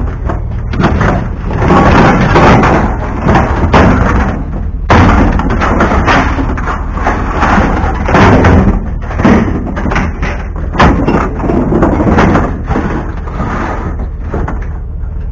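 Scrap metal being shifted around in a pickup truck bed: a corrugated sheet-metal panel and an aluminium lawn chair clattering, scraping and thudding against the bed, in irregular bangs throughout.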